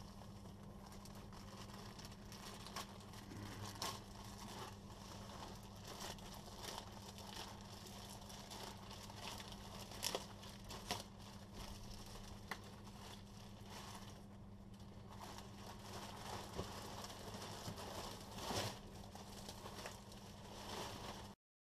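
Plastic courier bag crinkling and rustling as it is cut and torn open and the plastic-wrapped clothes inside are handled, with a few sharp clicks among the crinkles. A faint steady low hum runs underneath.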